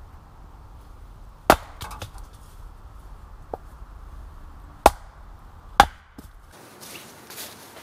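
Hatchet splitting short lengths of firewood on a wooden chopping block. There are three sharp chops, about a second and a half in, near five seconds and just before six seconds, with a couple of lighter knocks between them. The chopping stops about six and a half seconds in.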